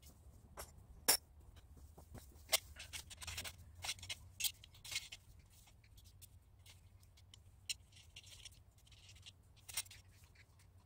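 Scattered light metal clicks and clinks, with short scraping stretches, as steel greenhouse-frame pipes and their clamp fittings are handled and fitted together.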